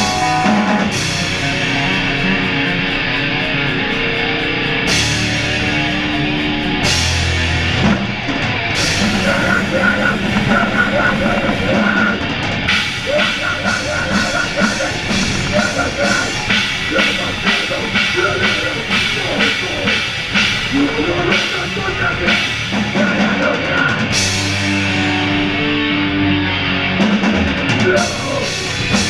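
Metalcore band playing live with distorted guitars, bass and drum kit. Held, ringing chords open the passage, then the drums come in and the full band plays a fast, heavy section.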